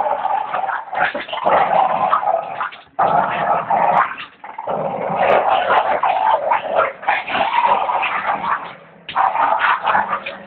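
Three dogs growling as they scuffle together, in long noisy stretches broken by brief pauses about three, four and a half and nine seconds in.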